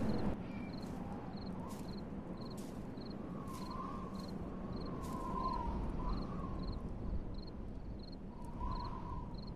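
Night-time ambience sound effect: a short high chirp repeating evenly about one and a half times a second, like a cricket, over a low rumble, with a few faint wavering tones in the middle and near the end.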